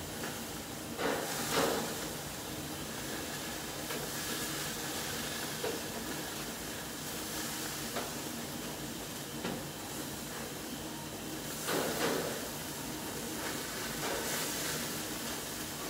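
Burgers sizzling on a gas barbecue grill, a steady hiss, with short louder scraping bursts about a second in and again near twelve seconds as they are worked with a grill utensil.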